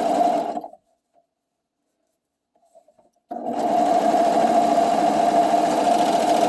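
Sewing machine stitching a hem around a curved edge in stop-start runs. It runs steadily, stops just under a second in, a few faint ticks sound as the fabric is repositioned, and it starts again for a steady run about three seconds later. The stopping and starting is how a rounded edge is steered.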